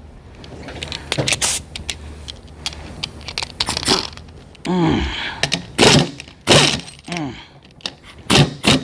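Impact wrench hammering on the transfer case bolts in short bursts, its whine dropping in pitch as it spins down between bursts, with metallic clanks of the tool and socket against the housing.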